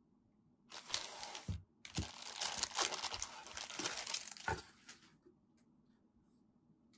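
Thin clear plastic packaging bag crinkling as a figure's display base is pulled out of it, in a short bout about a second in and a longer one from about two to five seconds, with a few low knocks from handling.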